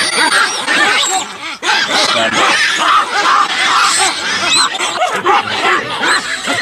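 A troop of baboons giving many overlapping harsh barks and calls at once: alarm calling at a leopard close among them.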